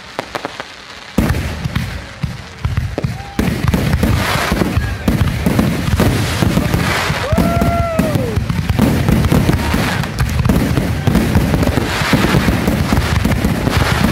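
Aerial fireworks shells bursting in rapid succession: scattered bangs begin about a second in and build into a dense, continuous barrage of booms and crackling.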